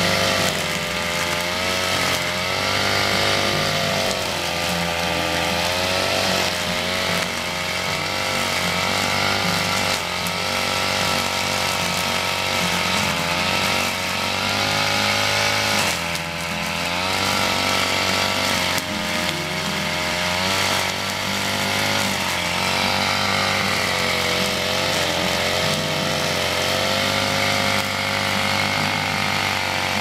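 Engine brush cutter running hard, its pitch rising and falling over and over as the line or blade swings through the grass and weeds.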